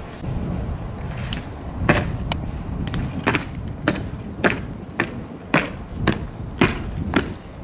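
Soldiers' boots striking stone paving in a slow, even marching step, about two sharp steps a second, starting about two seconds in, over a low rumble.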